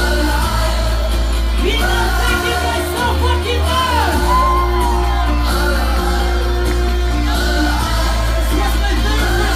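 Loud live electronic dance music from a concert PA: a heavy bass with a sung vocal line, and shouts from the crowd over it. The deepest bass drops out about two and a half seconds in and comes back a couple of seconds later.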